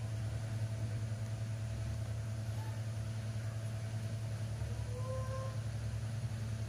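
A steady low machine hum that runs without change. Faint short high calls rise over it, a brief one about two and a half seconds in and a longer one around five seconds.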